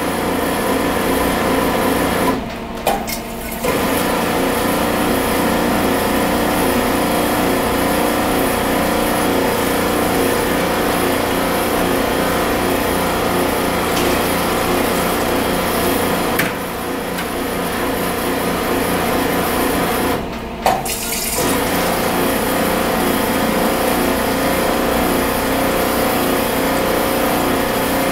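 Water running from the sparkling-water tap of a countertop carbonated-water dispenser into a glass bottle, a steady rush with a hum beneath it, stopping briefly twice as the flow is shut off. The first water off a freshly started machine is being run through until it comes out sparkling.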